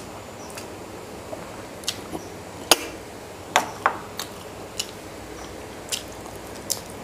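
Close-miked eating by hand: about ten irregular, sharp wet clicks and smacks from chewing and from fingers working food on a steel plate, the loudest a little under three seconds in.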